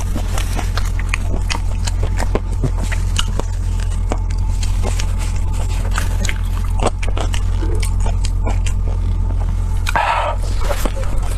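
Close-miked eating: scattered sharp bites, mouth clicks and scraping sounds, with a denser crunchy burst near the end, over a steady low hum.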